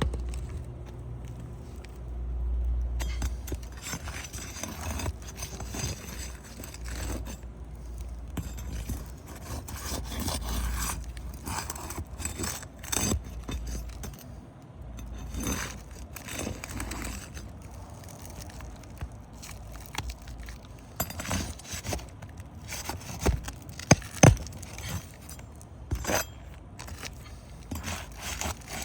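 Roofing tools scraping and clinking as nails are worked loose to remove an architectural asphalt shingle, with many scattered clicks and scrapes and several sharp knocks near the end. A low rumble underlies the first half.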